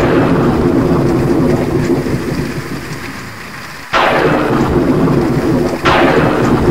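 Thunder rolling over steady rain. The rumble fades, then a new loud clap breaks in about four seconds in, and a second sharp crack follows about two seconds later, each trailing into a rumble.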